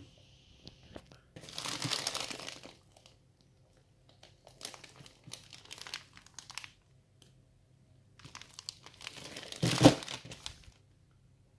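Plastic packaging of a frozen chicken nugget bag crinkling as it is handled, in three spells of rustling, loudest as the bag is turned over near the end.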